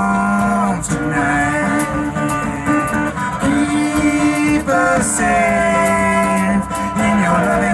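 Live band music: acoustic guitar, upright bass, electric guitar and drums playing, with a long-held melody line that bends slightly in pitch.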